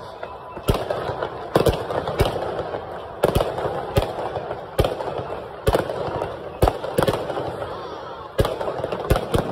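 Aerial firework shells bursting overhead: about a dozen loud, sharp bangs, irregularly spaced from half a second to a second apart, over a steady din.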